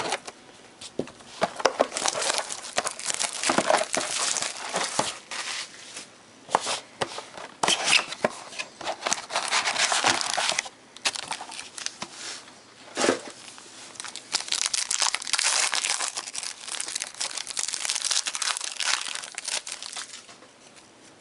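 Foil trading-card pack wrappers crinkling and tearing as a card box is opened and a pack is ripped open by hand, in spells of crackling with short pauses between them.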